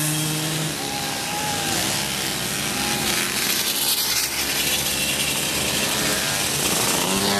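Several two-stroke Mobylette moped engines buzzing at high revs during a race. One engine's steady note drops away about a second in, and another engine's note comes in near the end.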